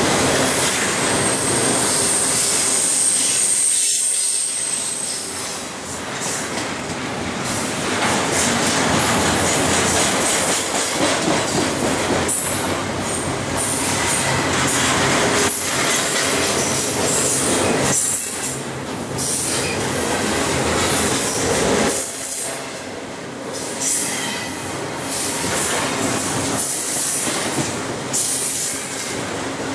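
BNSF double-stack container train rolling past: a steady loud rumble of steel wheels on rail with rhythmic clickety-clack from the wheels. A thin high wheel squeal rings for the first few seconds, and the rumble dips briefly a few times.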